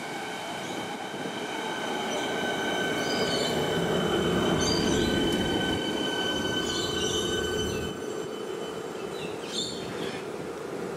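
Electric suburban train running past on the rails, its rumble swelling to its loudest about four to five seconds in. A steady high whine carries throughout, and short, high wheel squeals come several times.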